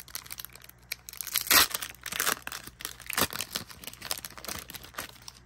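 Foil Pokémon booster pack wrapper being torn open and crinkled as the cards are pulled out: a dense run of short crackles and rips, the loudest about one and a half seconds in.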